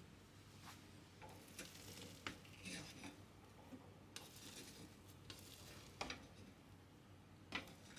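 Faint stirring of food in a cooking pot: a few soft scraping swishes of a utensil, with light clicks in between.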